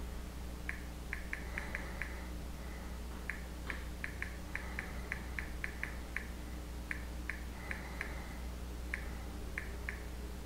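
Key-press clicks from a Samsung Galaxy smartphone's on-screen keyboard as someone types: short, high clicks at an irregular pace of a few per second, with brief pauses, over a steady low hum.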